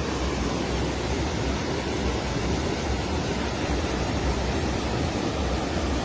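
Steady rush of water pouring over rock cascades and a waterfall into a stream pool, an even roar with no breaks.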